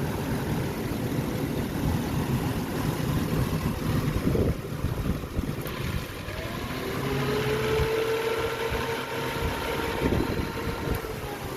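Ford car engine idling with a steady low hum. About seven seconds in, a whine comes in that rises slightly in pitch and fades near the end.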